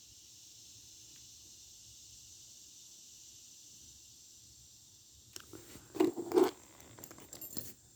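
Faint hiss, then about five seconds in handling noises as a small collectible is picked up: rustling and scraping with two sharp knocks about half a second apart.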